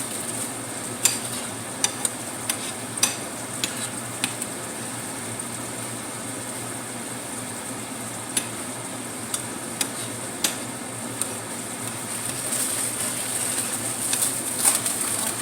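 Vegetables sizzling steadily in hot oil in a pan, with a scattering of sharp clicks from a spoon knocking against the pan as they are stirred.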